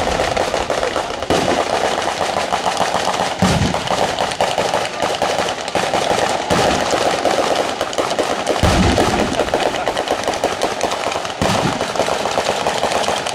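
Batteria sanseverese ground firework chain: firecrackers strung along the ground go off in a rapid, unbroken crackle, with three heavier bangs spread through it.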